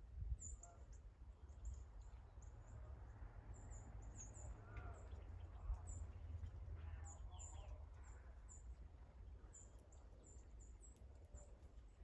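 Small songbirds giving short, high chip calls again and again, with a steady low rumble of background noise underneath.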